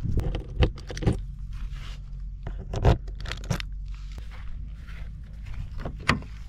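Footsteps on dry grass and scraping handling noise, with several sharp clicks as a motorhome's locker latch and cab door handle are handled; the sharpest click comes about six seconds in. A steady low wind rumble lies underneath.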